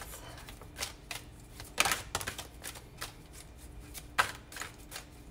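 A deck of oracle cards being shuffled by hand: irregular soft flicks and snaps of the cards, loudest about two seconds in and again about four seconds in.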